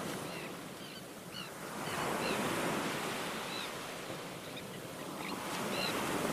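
Ocean surf breaking on a sandy beach: a steady wash of waves that swells twice and eases between. Faint short high chirps are scattered through it.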